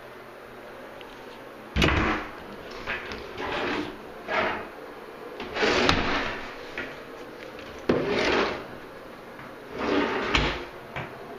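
Wooden bathroom vanity drawers and cabinet doors being slid open and pushed shut. It comes as a series of about six sliding rubs and knocks, the sharpest knocks about two seconds in and about eight seconds in.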